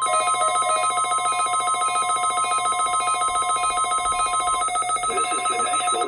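Several NOAA weather radios sounding their electronic alert alarms together on receiving a Required Weekly Test: a rapid, even, trilling beep in several pitches at once, with a steady single tone beneath that stops about a second and a half before the end.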